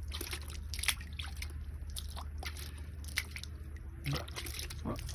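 Seawater sloshing and dripping in small, irregular splashes over a steady low hum.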